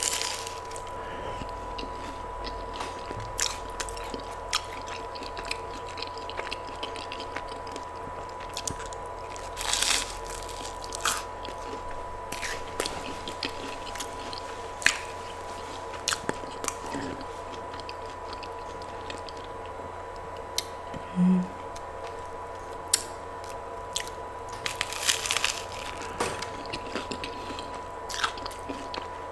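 Close-miked eating: a person biting and chewing food, with scattered crunches and short mouth clicks.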